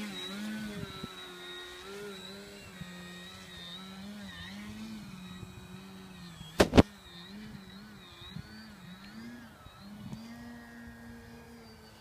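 Electric motor and propeller of a Seagull Super Decathlon RC plane, its whine rising and falling in pitch with the throttle during 3D flying. Two sharp clicks come close together a little past halfway.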